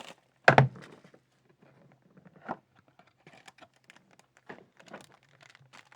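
Trading-card box being opened and its cards handled: a sharp knock about half a second in, then a run of light clicks and taps from cardboard and card stock.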